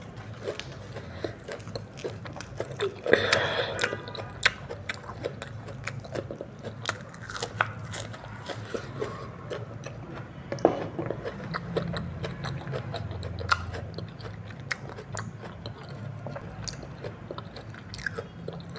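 Close-up mouth sounds of someone eating chow mein noodles: chewing with many wet clicks and smacks, with a louder burst about three seconds in.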